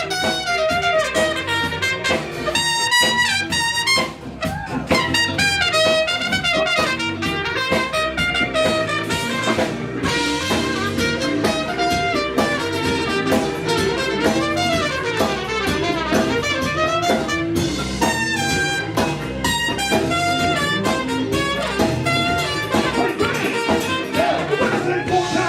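Live soul band playing an instrumental passage led by a horn section of trumpet and saxophone, over drums.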